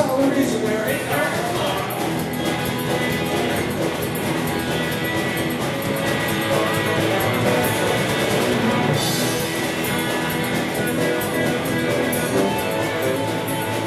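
Live rock band playing loudly and steadily on electric guitar and drums.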